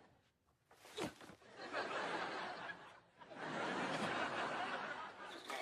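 Sitcom studio-audience laughter rising in two waves, the second one longer. A short falling sound effect comes just before it, about a second in.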